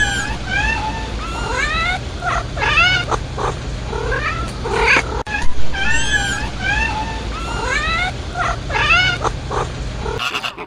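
Several cats meowing, many short rising-and-falling calls that often overlap, over a steady low hum.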